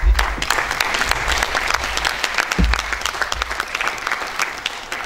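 Large audience applauding, many hands clapping steadily, with a couple of low thumps, one right at the start and one about two and a half seconds in.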